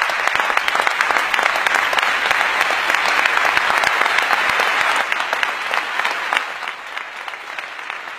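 Audience applauding, dense clapping that begins to thin out and fade about six seconds in.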